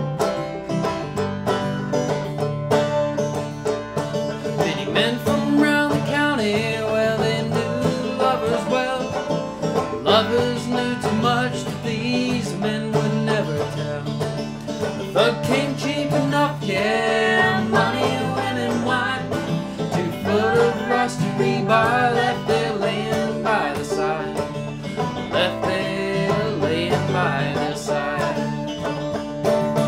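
Banjo and acoustic guitar, a Taylor koa, playing a bluegrass-style song together, the banjo picking busy rolling notes over strummed guitar chords, with a man's and a woman's voices singing in stretches.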